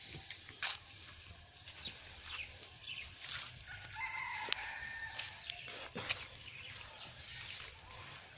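A rooster crowing once, about four seconds in, with a few sharp clicks and a faint outdoor background.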